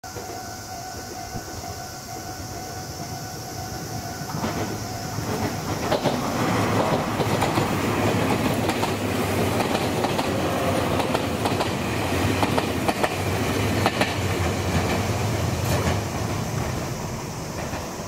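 Level crossing warning bell ringing with a steady two-tone note, then a Meitetsu Komaki Line electric train passing through the crossing, wheels clacking over rail joints. The train noise builds from about four seconds in, is loudest in the middle and eases off near the end.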